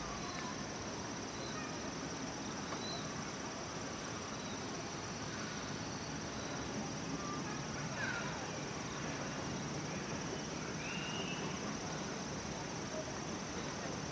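Steady outdoor background noise with a constant high-pitched whine, and a few faint short chirps or calls about 3, 8 and 11 seconds in.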